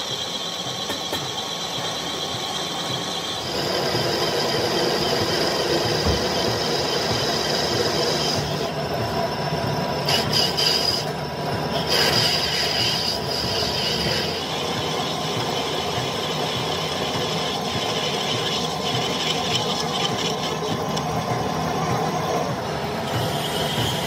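Metal lathe running as its cutting tool turns a metal gear blank, a steady machine sound with a high whine from the cut that shifts and breaks off as the tool feeds. Near the end a hand file is pressed against the spinning workpiece, rasping.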